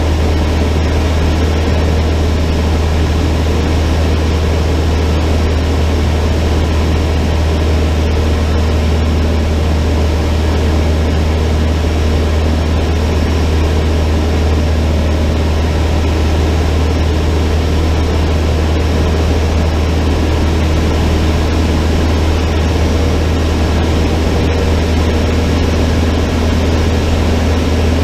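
Cessna 152's four-cylinder Lycoming engine and propeller running at a steady, unchanging power, with a strong low drone.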